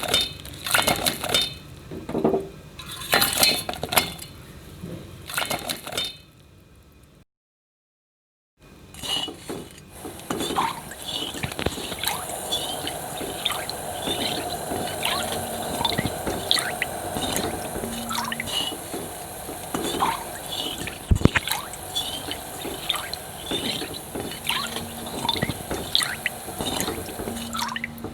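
Cooking in a kitchen pan: about seven seconds of irregular clinks and clatter, a short break, then a steady hiss with frequent small crackles and ticks.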